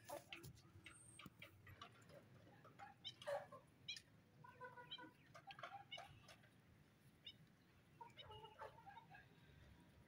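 Faint, soft calls of chickens, a few short pitched clucks about three seconds in, around five seconds and again near eight seconds, with light scattered clicks between them.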